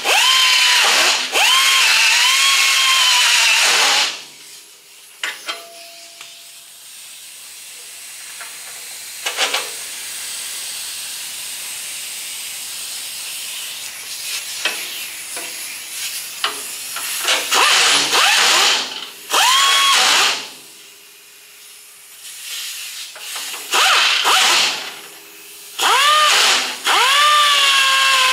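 Handheld rotary burring tool grinding out misaligned bolt holes in a metal bracket so they line up. A high whine drops in pitch under load and spins back up. It comes in several runs: a long one at the start, then shorter ones in the second half, with quieter hiss and light clicks between them.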